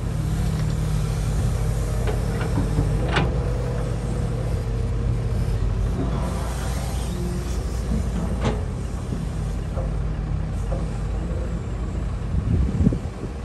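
Cat hydraulic excavator's diesel engine running steadily under load as it dumps a bucket of dirt into a dump truck and swings back, with two sharp knocks a few seconds apart and a louder rough crunch near the end as the bucket digs into the dirt pile.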